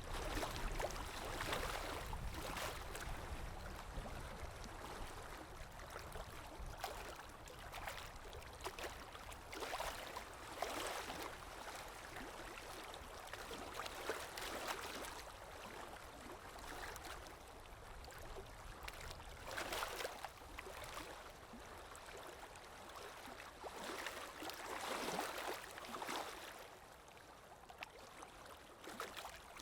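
Sea waves washing on a shore: a steady rush of water with a surge that swells and fades every few seconds.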